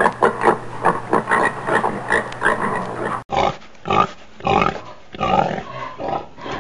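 Pigs grunting and oinking in quick, busy succession, cutting abruptly about three seconds in to a second recording of slower, separate oinks.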